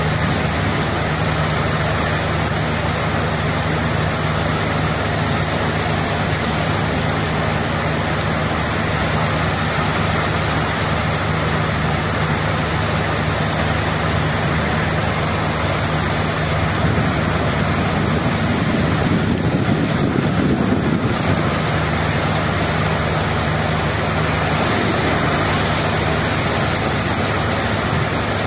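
Heavy rain pouring onto a paved street, a steady dense hiss of drops splashing on the wet road over a low steady hum. About twenty seconds in, a low rumble swells briefly for a couple of seconds.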